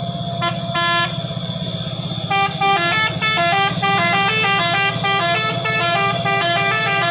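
Telolet multi-tone truck horn: two short toots in the first second, then from about two seconds in a quick tune of notes stepping up and down, over the steady running of the truck's engine.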